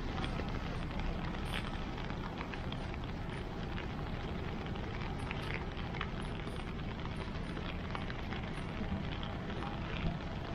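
Steady outdoor street ambience: a continuous low rumble with scattered faint crackles and clicks.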